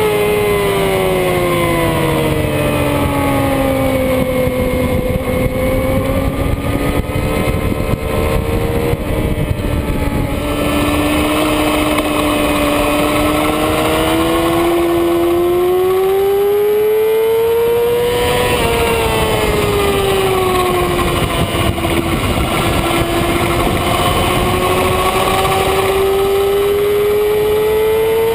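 2007 Yamaha R6 inline-four engine running hard on track. Its pitch falls at first, holds, climbs through the middle, drops, then climbs again near the end. Steady wind rush over the onboard microphone underlies it.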